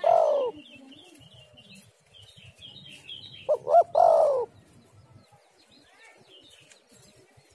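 Spotted dove cooing twice, at the start and again about three and a half seconds in; each call is two short notes followed by a longer note that falls at its end. Small birds chirp faintly at a higher pitch between the calls.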